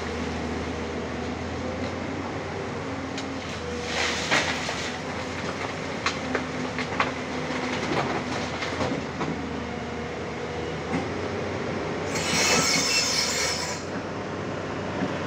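Tata Hitachi excavator working: its diesel engine runs with a steady drone and a faint hydraulic whine, with sharp metallic clanks and knocks between about four and nine seconds in. A loud rushing hiss lasts about two seconds near the end.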